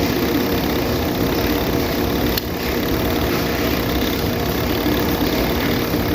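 Washing machine timer running on mains power: a steady hum from its small motor, with a single click about two seconds in.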